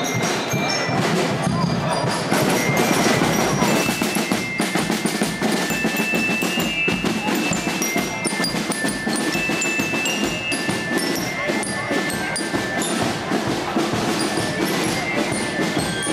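Street marching band playing: snare drums beating and rolling over a bass drum, with short high bell-like notes of a melody, over the chatter of a crowd.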